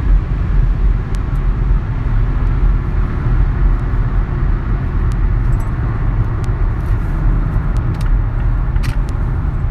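Cabin noise of a 2018 Mazda 6 slowing down from high speed: a steady low rumble of road and wind noise, with a few faint clicks scattered through it.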